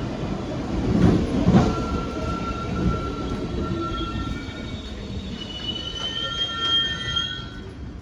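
New York City subway train rolling slowly through the station: a low rumble with a couple of clanks about a second in, then its wheels squealing in several high, steady tones that fade near the end.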